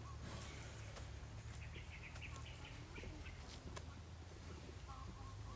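Quiet rural outdoor ambience: a few short bird calls, with scattered sharp clicks over a low steady rumble.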